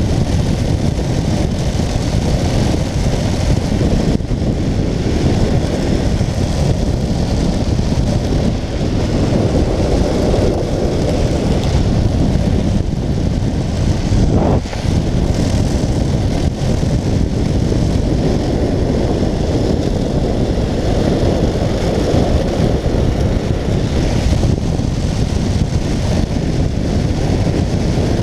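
Steady, heavy wind rush and road rumble on the microphone of a handlebar camera on a speed trike running fast downhill on asphalt. A short rising squeal comes about halfway through.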